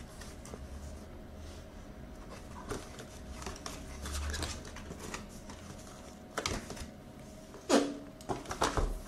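Cardboard packaging being handled and opened: soft rustling and scraping of card and inner packaging, then a few sharper knocks, the loudest about three-quarters of the way through.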